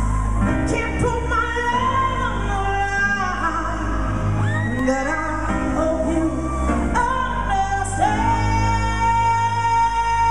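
A female pop vocalist sings live over a band with keyboards and a heavy bass, and holds a long steady note over the last couple of seconds. The sound is heard from the audience in a large arena.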